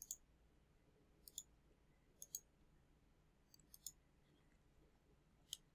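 A handful of faint computer mouse clicks over near silence, several of them in quick pairs.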